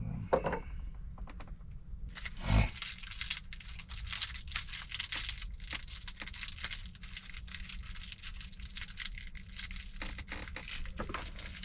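Dense crinkling and rustling with many small clicks, starting about two seconds in, over a faint steady low hum, with one low thump shortly after the rustling begins.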